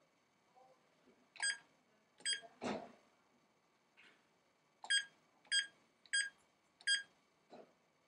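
Texecom Veritas alarm keypad beeping once for each key press: two short beeps, a dull knock, then four evenly spaced beeps as a four-digit user code is keyed in.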